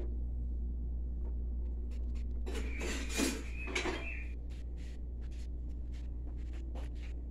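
Kitchen sounds: scattered light clicks and clinks of cookware over a steady low hum, with a brief louder sound about three seconds in.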